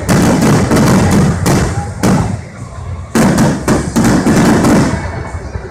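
Aerial fireworks shells bursting: three loud booms, just after the start, about two seconds in and about three seconds in, each followed by crackling and a fading rumble.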